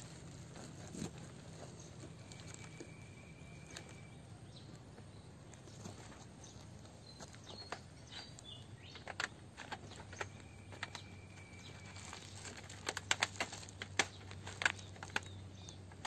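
Wire-mesh snake trap being handled by hand, its wire clicking and rattling in sharp ticks. The ticks are scattered at first and come thick and fast in the second half.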